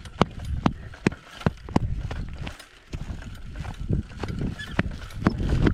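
Giraffe unicycle rolling down a dirt trail: sharp clicks about twice a second, easing off in the middle and coming back near the end, over a steady low rumble.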